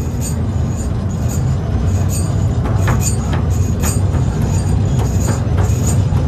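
Fishing boat's engine running with a steady low rumble, with light clicks and knocks about twice a second over it.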